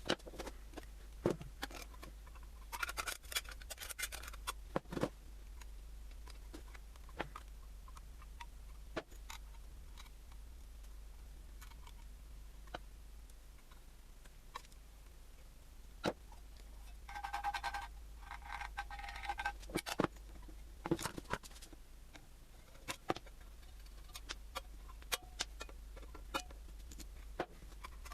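Scattered sharp clicks and knocks of metal parts and tools being handled on a workbench, with two brief rasping stretches: one about three seconds in and a longer one, with a faint ringing tone, around seventeen to nineteen seconds in. A low steady hum sits underneath.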